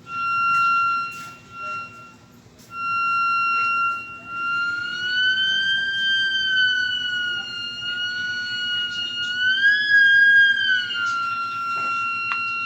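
Moog theremin sounding a steady high tone that cuts out briefly about two seconds in, then slides slowly up and back down twice before settling on its first pitch. The instrument is working again after a no-power repair of its DC input.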